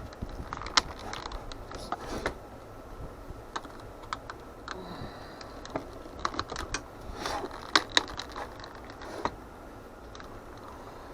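Small plastic parts of a toy model engine being handled and pressed together: scattered light clicks and taps as the spark plug wires are worked into plastic clips.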